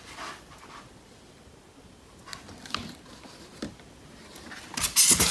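Cardboard box and foam packing being handled: scattered light taps and rustles, then a louder rustle of cardboard near the end.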